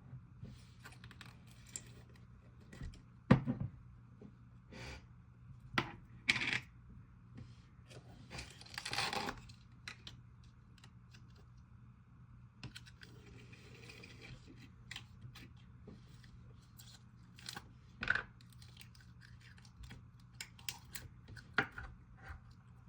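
Small plastic slime containers and packaging being handled and opened: scattered light clicks and taps, with a longer crinkling rustle about nine seconds in, over a faint steady hum.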